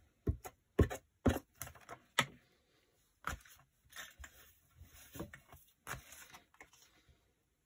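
Sheets of paper handled and laid down on a cutting mat: a string of irregular light taps and knocks, the sharpest in the first couple of seconds, with soft paper rustles between them.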